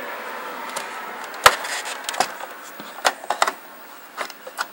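Handling noise: a series of short, sharp clicks and knocks, the loudest about one and a half seconds in, as a cable plug is worked into the back of a Commodore 128.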